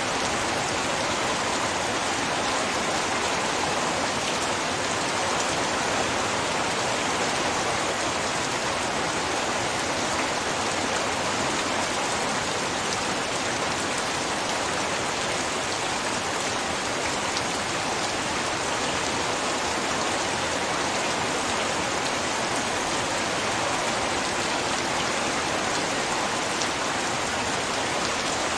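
Heavy rain falling steadily, an even, unbroken hiss of downpour on surfaces.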